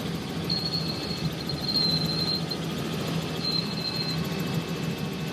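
Steady drone of a tour helicopter in flight, heard from inside the cabin, with a thin high whine that comes and goes.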